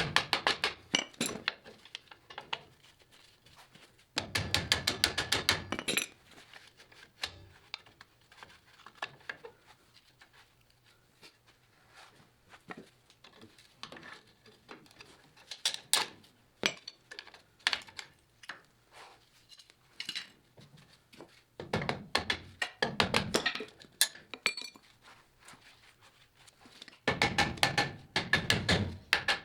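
Metal hand tools clinking and knocking on steel, with three bursts of rapid clicking about four seconds in, around twenty-two seconds and near the end.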